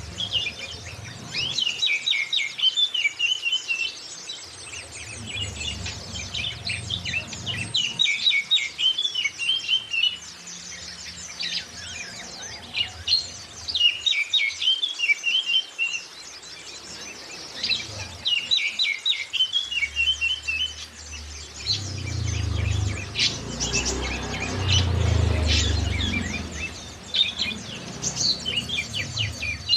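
Oriental magpie-robin and white-eye song: repeated bursts of fast, high chirping phrases separated by short pauses, played as a lure track to set caged songbirds singing. A low rumble swells underneath about two-thirds of the way through.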